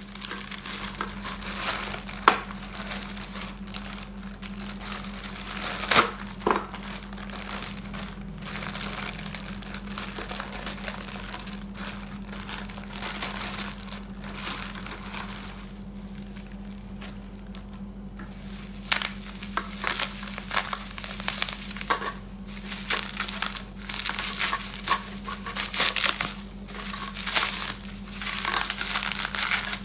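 Irregular rustling and crinkling handling noise, busier and louder in the second half, with a couple of sharp clicks, over a steady low hum.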